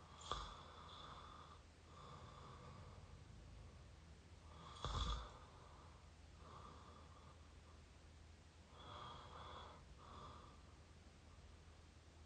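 A person snoring through an open mouth close to the microphone: faint breaths in and out, one cycle about every four seconds. The loudest breath comes about five seconds in.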